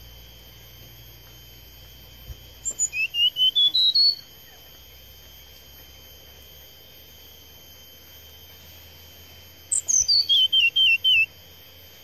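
Brown-chested jungle flycatcher singing two quick phrases of short, loud whistled notes: the first, a couple of seconds in, climbs in pitch note by note; the second, near the end, steps down from high to low.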